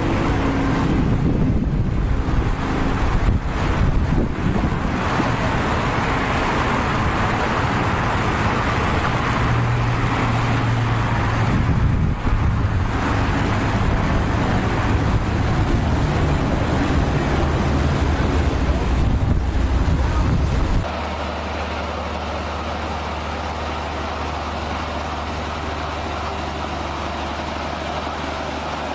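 Motor vehicle engine noise, loud and rough with heavy low rumble. About two-thirds of the way through it cuts off suddenly to a quieter, steady engine hum.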